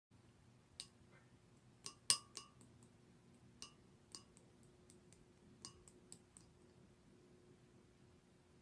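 A scattering of short, sharp clinks and taps of small hard objects, about nine in all, the loudest just after two seconds, over a faint steady low hum.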